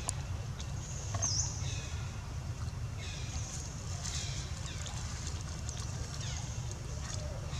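Outdoor ambience: a steady low rumble under a faint high hiss, with a few short, high chirping calls scattered through.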